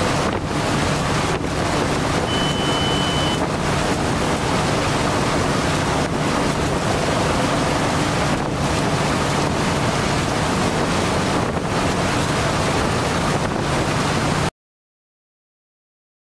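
Helicopter flying, heard from the air: a steady loud rush of rotor and engine noise with a low hum and wind on the microphone. A brief high beep sounds about two seconds in. The sound cuts off abruptly to silence about fourteen seconds in.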